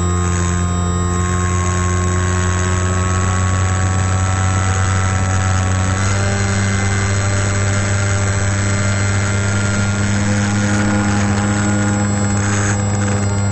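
RC FPV airplane's motor and propeller running at steady cruise, a constant drone with airflow noise, heard from the onboard camera; the pitch shifts slightly about six seconds in.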